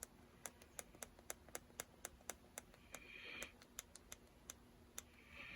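Faint small plastic clicks repeating at about four a second: the time-set buttons of a Coby CX50 clock radio being pressed over and over to step the clock forward while setting the time.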